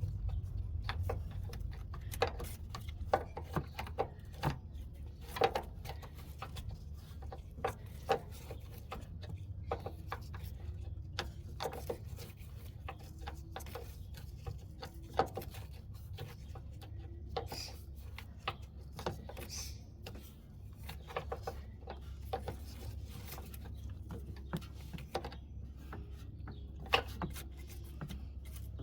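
Irregular clicks, taps and knocks of hand tools on metal, spanner work on the rear air spring of the car's air suspension, over a steady low hum.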